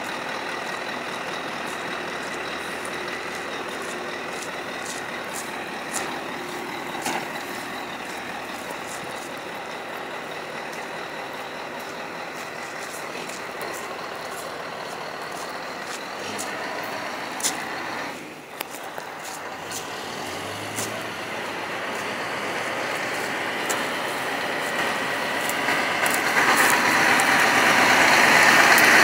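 V8 diesel engine of a Scania stock truck running steadily, with scattered sharp clicks, growing louder over the last few seconds.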